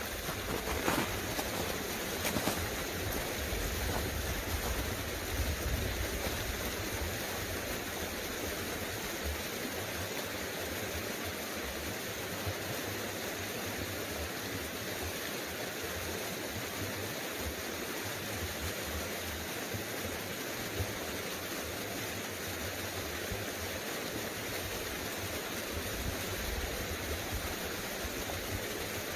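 Small mountain creek flowing steadily, a continuous even hiss of running water, with some low rumbling in the first several seconds.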